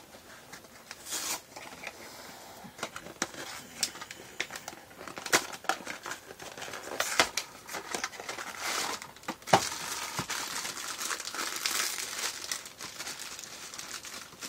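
Funko Mystery Minis cardboard blind box being torn open by hand, then the shiny bag inside crinkling as it is handled: irregular sharp crackles and clicks, turning into a denser crinkling over the second half.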